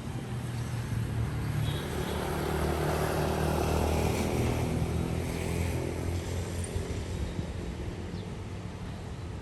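A road vehicle passing along a city street. Its engine hum and tyre noise swell to a peak about three to four seconds in, then fade away.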